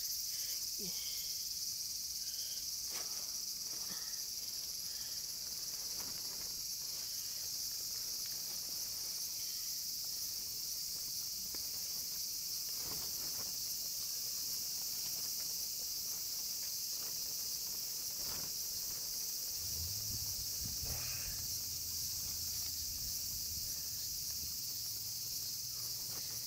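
Steady high-pitched chorus of insects, unbroken throughout, with a few faint clicks and a low hum that comes in about twenty seconds in.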